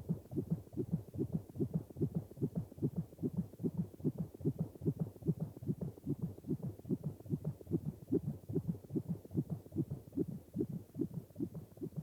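Heartbeat sound effect: a steady, quick run of low thumps, several a second.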